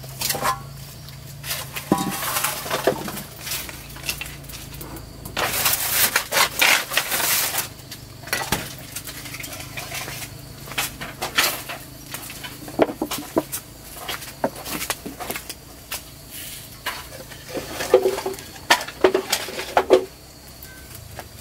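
Irregular clatter of pots, dishes and utensils: scattered sharp clinks and knocks, with a denser stretch of noise from about five to seven seconds in.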